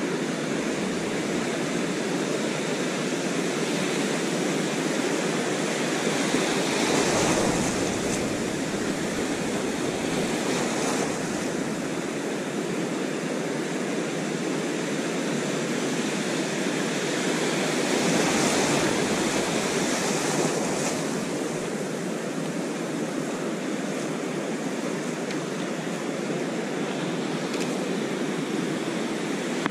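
Ocean surf washing up the beach with an even rush, swelling louder as waves break about seven seconds in and again around eighteen seconds.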